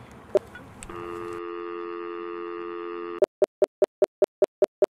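Telephone dial tone held for about two seconds, then a quick run of about nine short dialing beeps, about five a second, that cuts off abruptly.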